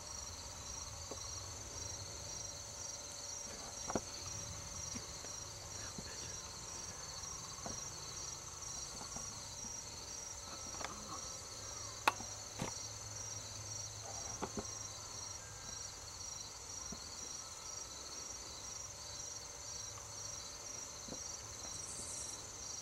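Steady, high-pitched chorus of crickets, unbroken throughout, with a few sharp clicks, the loudest about four seconds and twelve seconds in.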